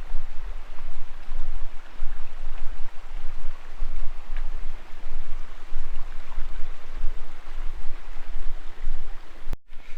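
Steady rushing of a mountain creek, with a heavy low rumble underneath; it cuts off suddenly near the end.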